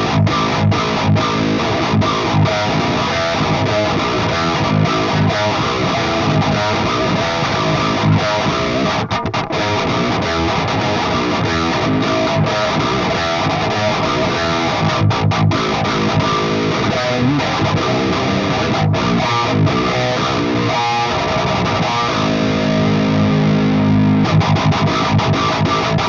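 Heavily distorted seven-string electric guitar (Ibanez with Bare Knuckle Aftermath pickups) playing a continuous modern-metal riff through a Trooper OverRider preamp pedal into a cabinet simulator. The drive channel is tightened by the overdrive channel in front of it, bringing the mids forward. Near the end a low chord is held and rings.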